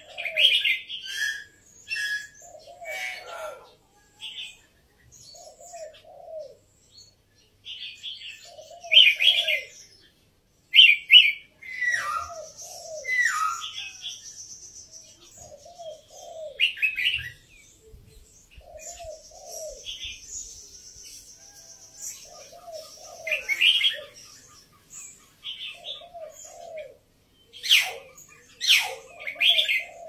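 Caged red-whiskered bulbul singing short, bright chirping phrases at irregular intervals. Under it a dove coos low and steadily, about once every two seconds.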